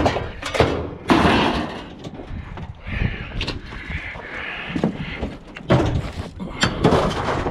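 Several loud bangs and thuds from a galvanized sheet-metal utility trailer and scrap being handled as the trailer is emptied, with scraping and rustling between the knocks.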